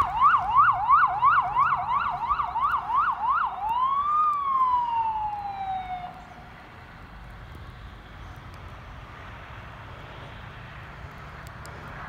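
Electronic emergency-vehicle siren on a fast yelp, about three sweeps a second. Near 4 s it changes to one slower rise and a long falling tone that dies away about 6 s in. Steady road and traffic noise remains after it stops.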